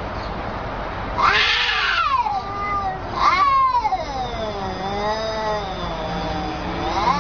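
Two cats yowling at each other in a face-off: long, drawn-out calls that waver up and down in pitch, the warning yowls of a territorial standoff. Two louder, harsher cries break in, about a second in and about three seconds in.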